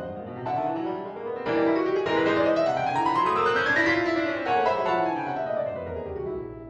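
Solo piano playing a contemporary classical piece, with fast flowing runs of notes that climb to a high point about four seconds in and then descend.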